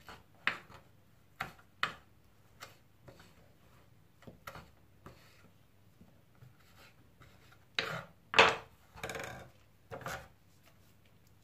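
Kitchen knife cutting fresh mint leaves on a wooden cutting board: irregular sharp taps of the blade on the wood. Near the end come a few louder scrapes and knocks as the cut mint is moved into a plastic bowl.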